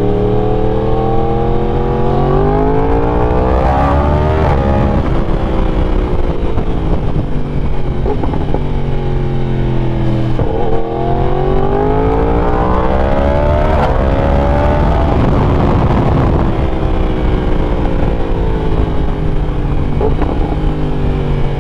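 2020 Yamaha YZF-R1's 998 cc crossplane inline-four with a full exhaust, revving up under hard acceleration with a shift about five seconds in, pulling hard again from about ten seconds in, then rolling off with the revs falling through the last several seconds.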